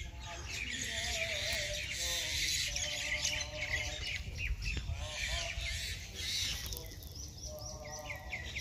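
Many birds chirping and calling at once in a dense, busy chorus, with short repeated calls standing out near the end.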